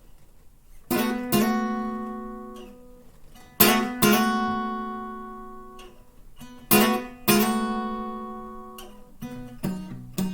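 Acoustic guitar intro: three ringing chords, each struck twice in quick succession and left to ring out, then a quicker picked rhythm with bass notes beginning near the end.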